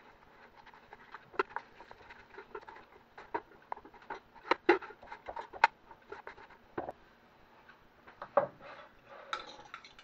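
Roasted potato and pepper chunks being stirred in a metal cake tin inside an air fryer basket: irregular clicks, taps and short scrapes against the tin, with one louder knock near the end.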